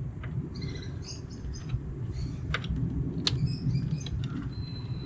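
Birds chirping in the background, with a few sharp, irregular clicks and low rustling from hands and a socket tool working on the wiper motor controller's screws.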